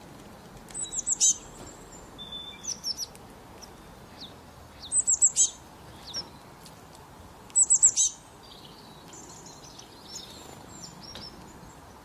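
Small bird chirping: quick high chirps in tight runs of four or five, with three loud runs about a second, five seconds and nearly eight seconds in, and fainter single chirps between.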